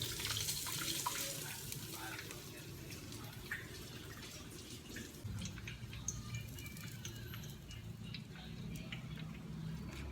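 Cheese stick deep-frying in hot oil: a steady sizzle scattered with small crackling pops.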